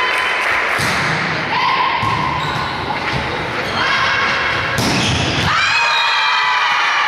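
Volleyball being served and struck in a large sports hall: several dull thumps of hand on ball, the heaviest about five seconds in. They sit over steady crowd noise with voices calling out.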